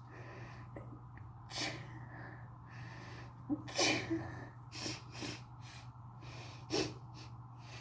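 A person with a head cold sneezing: gasping in-breaths lead into a loud sneeze about four seconds in, with other short breathy bursts about a second and a half, five and seven seconds in. A steady low hum runs underneath.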